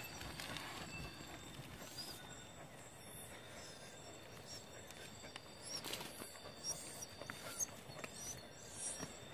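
Faint scuffing and scraping of a dog pushing its head into a burrow in the earth, with a few faint high chirps.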